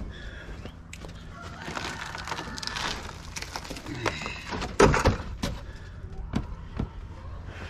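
Rotted pressed-wood wall panel of a pop-up camper being wrenched off its wooden frame by hand, cracking and splintering. The loudest burst of cracks comes about five seconds in, followed by a few separate knocks.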